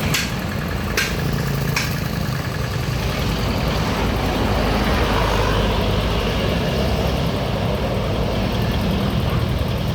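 Bus engine running steadily with road noise, with a few sharp clicks in the first two seconds.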